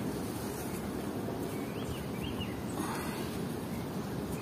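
Rural outdoor ambience: a steady low rumble with two short, faint chirps about halfway through.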